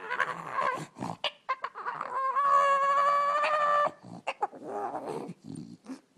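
A dog vocalizing among rustling bedding: short whimpers and snuffles, then about two seconds in one long, steady whining howl of nearly two seconds, followed by softer, lower grumbling whines.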